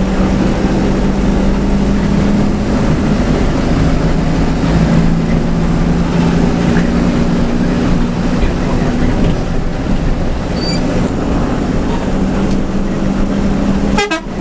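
A front-engined bus's diesel engine drones steadily under road and tyre noise, heard from inside the cabin while the bus cruises. It drops out briefly near the end.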